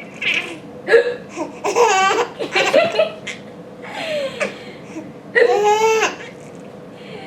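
A five-month-old baby laughing in several separate bursts, set off by a woman's hiccups, which come as short sharp sounds between the laughs.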